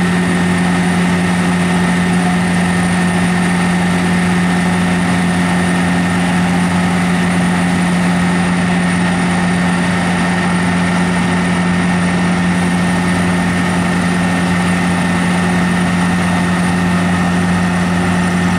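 Bergkamp M1 continuous microsurfacing paver running steadily as it lays microsurfacing: a constant engine and machinery drone with a strong low hum and fainter, higher steady tones.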